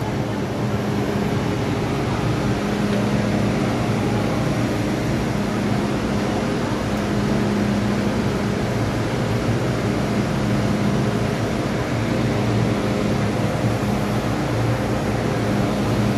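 MTR M-Train electric multiple unit running as it pulls away from the platform, heard from inside the car: a steady rumble of running noise with a low hum.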